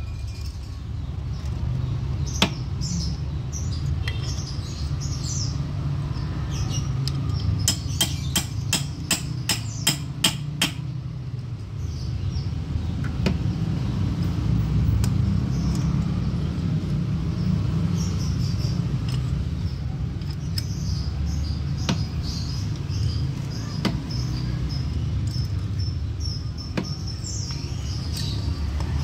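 Hand tap being turned in a stripped clutch-cover bolt hole on a Vespa two-stroke engine to re-cut the thread: scattered light metal clicks, with a quick run of about eight clicks near the middle, over a steady low rumble.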